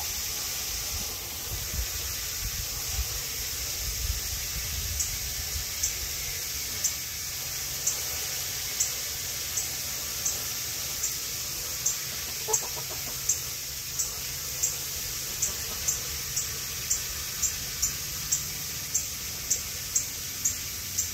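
Backyard chickens, with one short cluck about halfway through over a steady hiss. Light, sharp ticks repeat about once or twice a second from about five seconds in, quickening toward the end.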